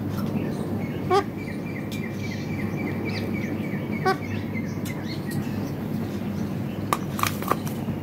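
Indian ringneck parakeet giving two short, sharp calls, about a second in and again about four seconds in, over a steady low hum. A faint quick series of high chirps runs between the calls, and a few sharp clicks come near the end.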